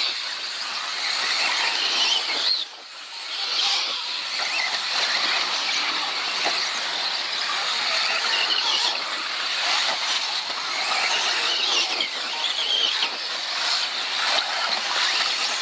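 Several radio-controlled off-road buggies racing around a track: a high, wavering motor whine mixed with tyre noise that swells and fades as the cars pass. It drops off briefly about three seconds in.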